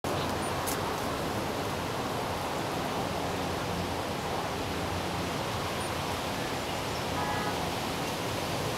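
Steady wind, an even rushing hiss that holds at the same level throughout.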